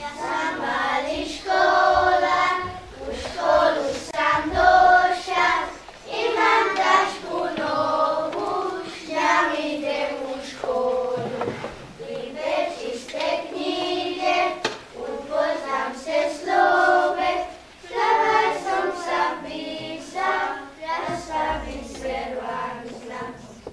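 A children's choir singing a song, the voices holding notes in phrases with short breaks between them.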